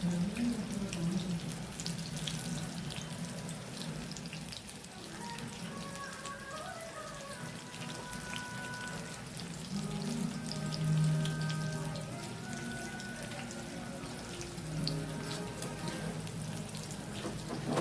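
Corn pakoras frying in hot oil, with an irregular sizzle and crackle. Faint background music plays over it.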